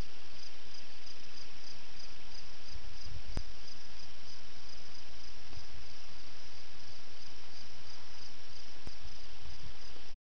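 A steady chorus of crickets chirping in rapid pulses, over a faint low rumble, with a soft click or two. It stops abruptly at the very end.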